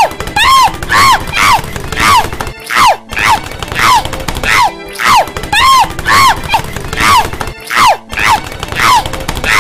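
High-pitched cartoon woman's voice crying out over and over as she tumbles down stairs, about two short rising-then-falling yelps a second, each with a thud. The same few seconds repeat as a loop.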